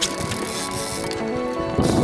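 Background music with held, steady notes, over a constant hiss of wind and water noise.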